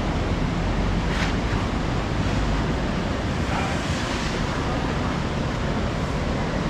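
Steady rushing roar of the swollen Teesta river in flood, with wind buffeting the microphone.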